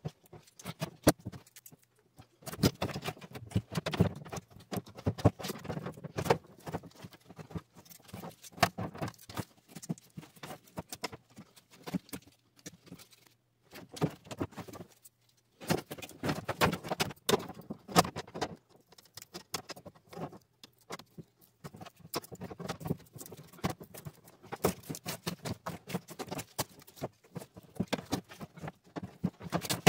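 Thin copper refrigerant tubing being pulled and worked out of broken foam insulation in a refrigerator's sheet-metal liner: rapid irregular clicks, scrapes and crackles of tubing and foam against the metal, pausing briefly about halfway through.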